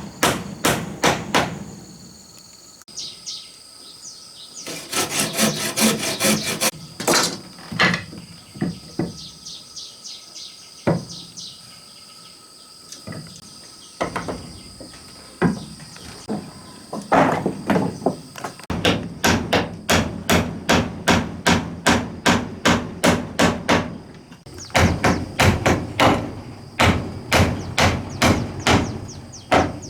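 Hammer blows on wood in runs of quick strikes, about two to three a second, broken by short pauses. A steady high insect trill sounds in the background at times.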